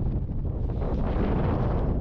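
Strong blizzard wind buffeting the microphone, a steady low rumbling rush.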